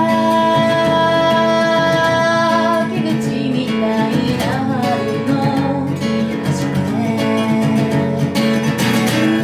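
A woman singing in Japanese over a strummed acoustic guitar, holding one long note for about the first three seconds before the melody moves on.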